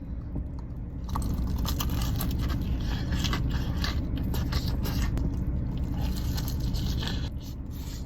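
Biting into and chewing crispy spicy fried chicken close to the microphone: crunching and crackling of the fried skin, starting about a second in and easing off near the end, over a steady low hum.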